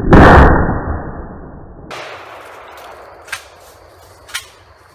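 One shot from a Kel-Tec KSG 12-gauge pump shotgun firing a homemade shell loaded with an AR-15 .223 bullet. The loud blast dies away over about two seconds, and two faint clicks follow later.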